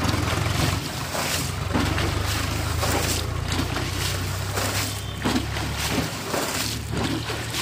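Muddy water sloshing and splashing as a tin is scooped through a shallow pit and emptied onto the bank, with repeated splashes, over a steady low drone.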